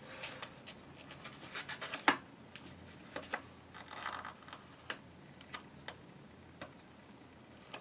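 Thin vinyl stencil sheet being peeled up off a spray-painted plastic rifle stock: faint crinkling and crackling of the plastic film, with a sharper snap about two seconds in.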